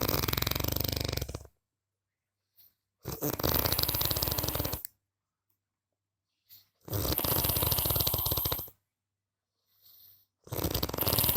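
A person snoring: four long snores, each a rapid flutter of about one and a half to two seconds, coming roughly every three and a half seconds with silence between. The fourth begins near the end.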